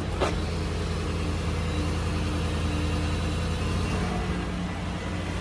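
2004 Lexus GX470's 4.7-litre V8 idling steadily, with one short click just after the start.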